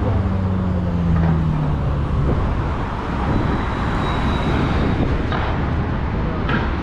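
Downtown street traffic: a passing vehicle's engine hum that sinks a little in pitch over the first second or so, over steady road noise.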